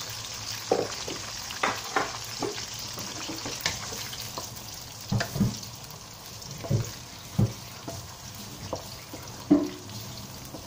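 Eggplant pieces sizzling as they fry in oil in a non-stick wok: a steady hiss. A wooden spatula knocks and scrapes against the pan every second or so as the pieces are turned.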